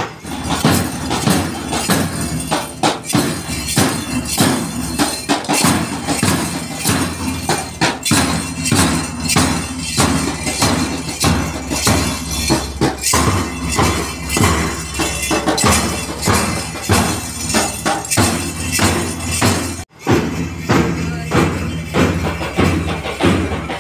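Loud music with a steady, quick beat, dropping out for an instant about twenty seconds in.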